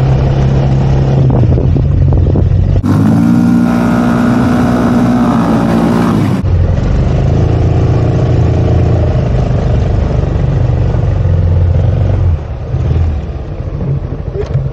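Yamaha XMAX 300 scooter's single-cylinder engine running while riding, with road and wind noise. From about three seconds in to six and a half seconds a clearer, higher engine note stands out, and the sound eases off near the end.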